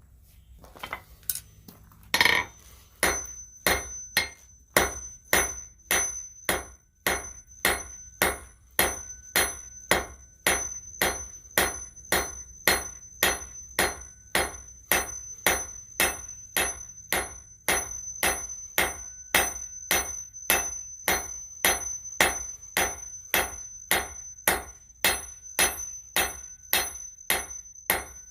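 Blacksmith's hammer striking steel on an anvil in a steady rhythm of about two blows a second, each blow ringing. A few irregular blows come first, the loudest about two seconds in, before the even rhythm sets in.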